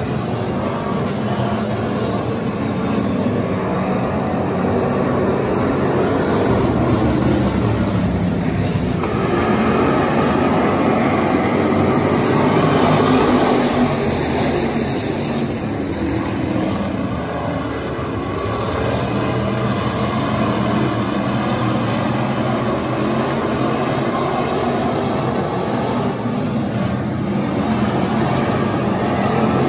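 Pure/factory stock race car engines running hard at racing speed, a continuous loud engine sound that swells louder around the middle and eases off again.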